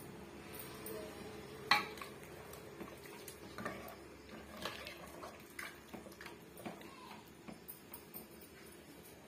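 Metal ladle stirring and scooping gravy in an aluminium pressure cooker, clinking and knocking against the pot a number of times, the loudest knock about two seconds in.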